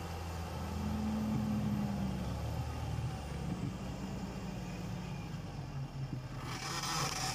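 Fendt 930 Vario tractor's six-cylinder diesel engine running steadily under load while pulling a four-furrow reversible plough. Near the end a rushing, scraping noise comes in as the plough turns the soil.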